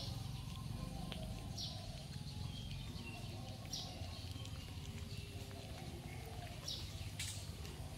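Outdoor background noise: a steady low rumble, with four or five short high chirps about two seconds apart and a few faint clicks.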